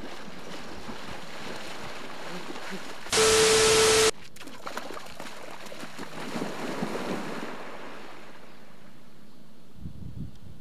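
Splashing of a person running and wading through knee-deep river water. About three seconds in, a loud one-second burst of hiss with a steady tone in it cuts in and stops abruptly.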